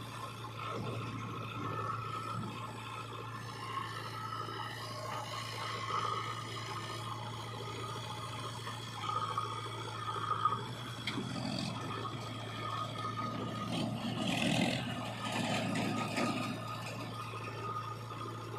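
Diesel engine of heavy earth-moving machinery running steadily, with irregular scraping and rubbing of a bucket working in mud and earth. The scraping comes in louder patches about halfway through and again near the end.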